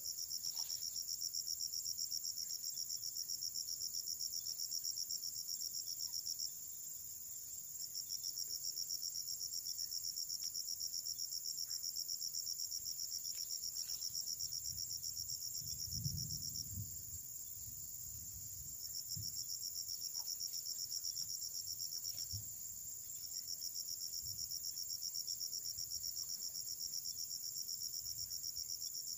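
An insect trilling: a steady, high-pitched, rapidly pulsing trill that stops briefly three times. Soft, low handling rustles can be heard near the middle.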